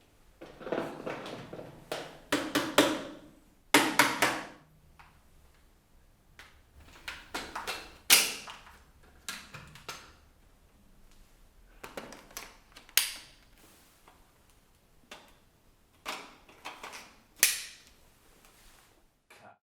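Plastic parts of a Dyson V6 cordless vacuum being handled and clicked together: a series of sharp clicks and knocks with short scraping sounds between them, and no motor running.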